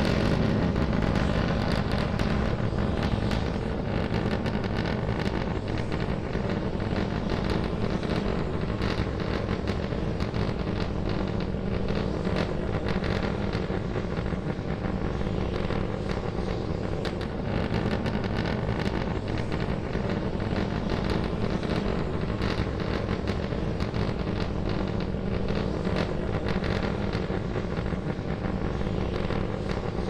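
Starship SN10's three Raptor rocket engines burning during ascent: a steady, loud rocket rumble with a dense crackle running through it.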